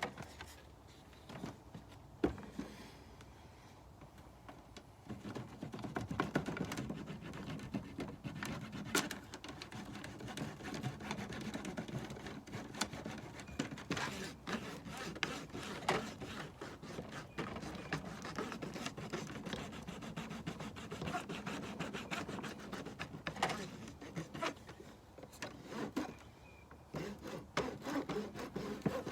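Hive frames being handled and rubbed: quiet at first with a few knocks, then from about five seconds in, continuous scratchy rubbing strokes with frequent small knocks.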